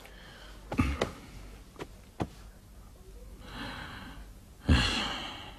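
A man breathing in and then letting out a heavy sigh near the end, with a few light clicks earlier on.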